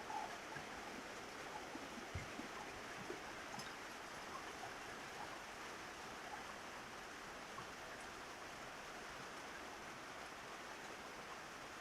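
Steady rain falling on a roof, an even hiss of drops with a few faint ticks. There is a single low thump about two seconds in.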